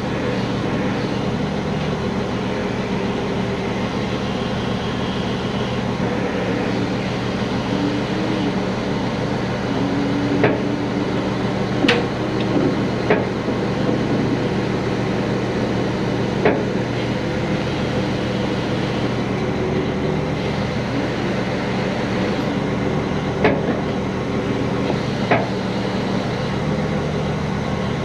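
Heavy-duty diesel truck engine running steadily during a trailer lift, with about half a dozen sharp metal clanks from the rigging, spread over the middle and later part.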